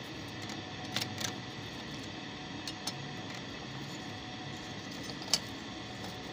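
Short metallic clicks and taps of a thin steel plate being fitted onto a Juki buttonhole sewing machine's bed: two pairs in the first three seconds and a sharper single click about five seconds in, over a steady low hiss.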